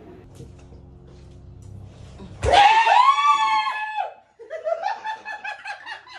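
A person's sudden, loud, high-pitched scream, sweeping up and held for about a second and a half, comes about two and a half seconds in, with a low steady hum before it. Bursts of laughter follow.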